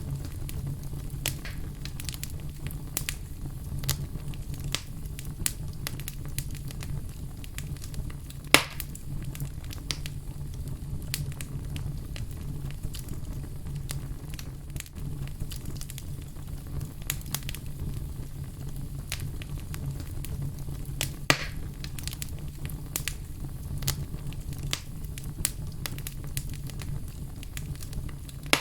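Fire crackling in a fireplace: a steady low rumble of the flames under frequent small crackles, with two louder pops, about a third of the way in and again about three-quarters through.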